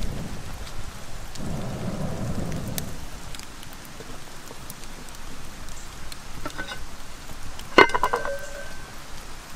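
Steady rain with scattered small ticks. Near the end comes one sharp metallic clank with a brief ring as the lid of a cast-iron Dutch oven is lifted with a stick.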